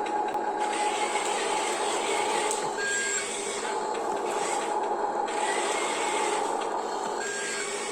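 Small electric motors and plastic gearboxes of a toy RC construction vehicle whirring steadily, rising and easing a few times as it works.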